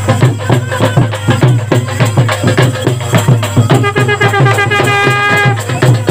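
Live folk drumming for a procession dance: fast, steady drum strokes. Near the end a long steady pitched note is held over the beat for about two seconds.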